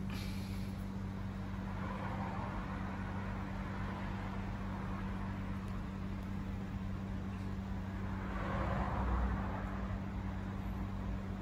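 Steady outdoor background noise with a constant low hum, which swells and fades once about eight to nine seconds in.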